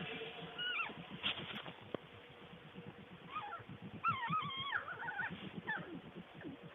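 A skunk squeaking: several high, wavering chirps, the longest run starting about four seconds in, over low rapid pulsing sounds.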